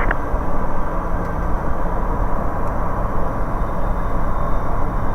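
Steady drone of a Bristell light aircraft's engine and propeller with airflow noise, heard from inside the cabin in level cruise-descent.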